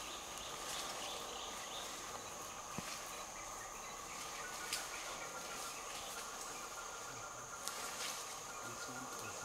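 Equatorial rainforest insect chorus: a steady high buzz with a lower humming band and a thin held tone joining about a third of the way in. It is broken by three short sharp clicks.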